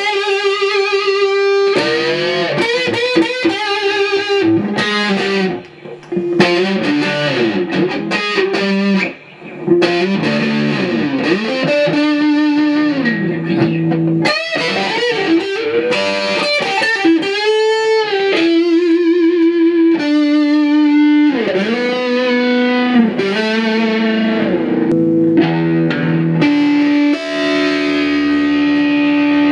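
Electric guitar played through a Marshall Valvestate 8040 combo amp, the amp back in working order after repair: a single-note lead line full of string bends and vibrato, with two short gaps, settling into a long held note near the end.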